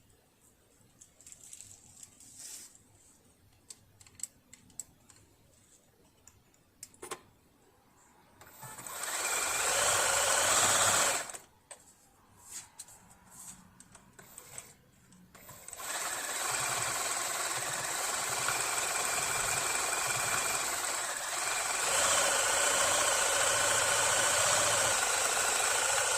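Riccar Bernina Holidayne 1090 household sewing machine, half-disassembled and being oiled to free its seized reverse feed. A few light clicks of handling, then the machine runs hard for about three seconds and stops, gives a few short starts, and settles into steady running about two-thirds of the way through.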